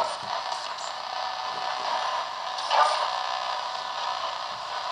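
Ghost box: a modified AM radio sweeping through the stations, heard through a small portable speaker as choppy hiss and crackle with a few louder blips, thin and without bass.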